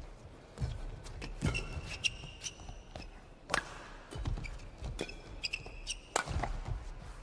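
Badminton rally: sharp racket hits on the shuttlecock every two seconds or so, with shoes squeaking and footfalls on the court mat between the shots.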